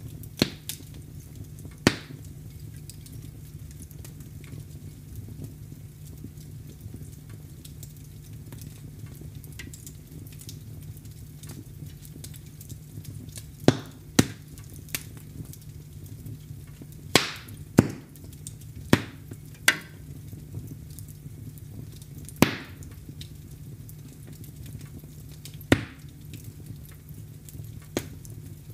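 Wood fire crackling in a fireplace: a steady low rumble of burning with sharp, irregular pops from the wood. The pops are sparse at first, then come in a quick run in the middle.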